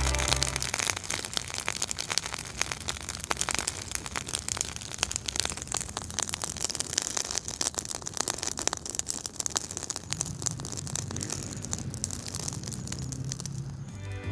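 Cow testicles grilling on a wire rack over an open wood fire: fire crackling and meat sizzling, with a dense, irregular run of small pops.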